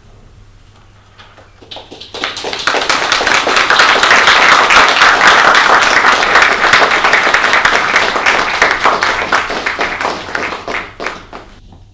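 Audience applauding after a song ends: the clapping starts about two seconds in, swells within a couple of seconds and fades away near the end.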